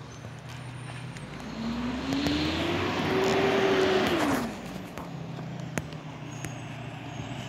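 A motor vehicle engine revs up over about two seconds, holds for about a second and drops back near the middle, over a rush of noise; a low steady engine hum runs underneath.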